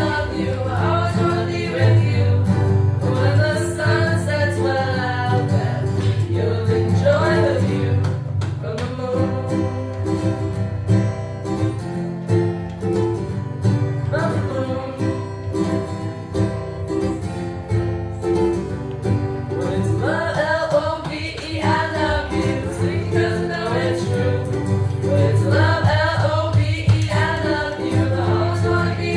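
Live singing by several voices with acoustic guitar accompaniment, in a gospel or folk style.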